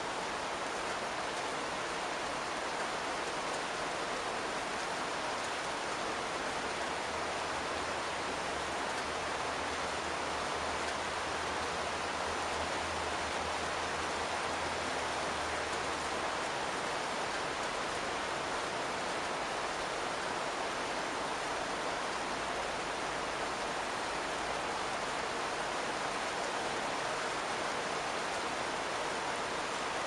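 Steady rain falling on a house roof (not a metal one), heard from inside the attic underneath it: an even, unbroken hiss of drops on the roofing.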